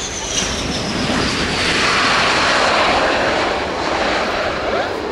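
A Panavia Tornado's twin Turbo-Union RB199 turbofans as the jet lands and passes close by. A high whine falls in pitch in the first second, then a broad jet roar swells to its loudest about two seconds in and eases off slightly.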